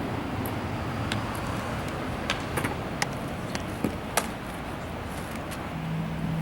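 Steady outdoor background noise with a scattered run of short, sharp clicks, and a low steady hum that comes in near the end.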